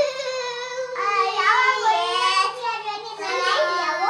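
A young child singing without clear words, holding long high notes of about a second each that step and slide between pitches.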